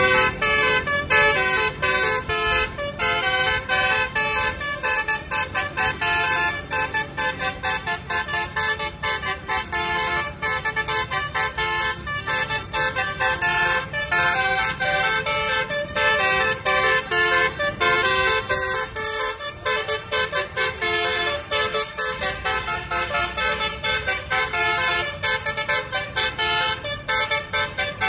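Basuri telolet bus horns on the roof trumpets playing a fast, continuous melody of short stepped notes, with a low road rumble underneath.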